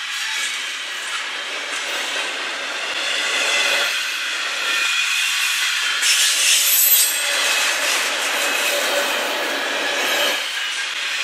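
Double-stack intermodal freight train rolling past close by: a steady noise of steel wheels running on the rails and the well cars rattling, with faint high wheel squeal, briefly louder about six to seven seconds in.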